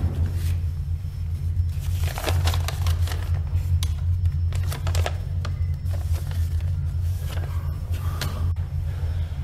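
Sheets of paper being flicked and handled, a run of irregular crisp rustles and clicks over a low steady drone.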